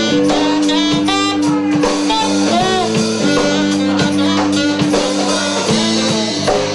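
Live rock band playing: electric guitar and drum kit, with a melody line over the top.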